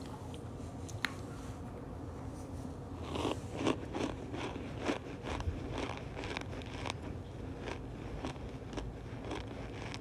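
Packed cornstarch crunching in a series of short, irregular crunches, about one or two a second, starting about three seconds in, after a single sharp click about a second in.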